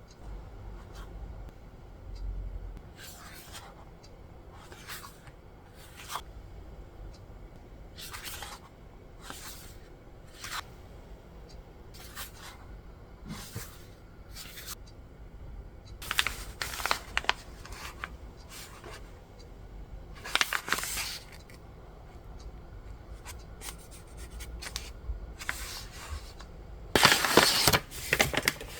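Packaging being opened by hand: scattered rustling and short tearing sounds, with the busiest and loudest handling near the end.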